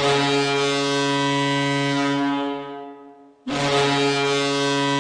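Ice hockey goal horn, signalling a goal, sounding two long, loud, steady blasts: the first fades out about two and a half seconds in, and the second starts about a second later.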